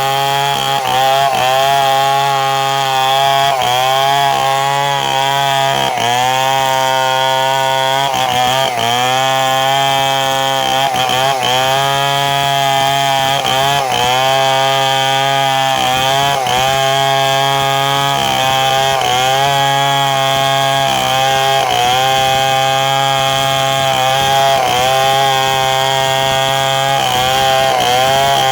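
Two-stroke chainsaw running at high revs and cutting wood, its engine note dipping and recovering again and again, every second or two, as the chain bites.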